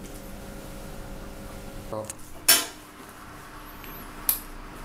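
A few sharp clinks and knocks of hard parts being handled and set down, the loudest about two and a half seconds in and another near the end, over a steady low hum.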